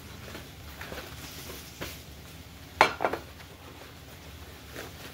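Dishes clinking and knocking as serving dishes are set out, a few light knocks and a sharp double clatter about three seconds in. Underneath, a faint sizzle of cassava deep-frying in oil.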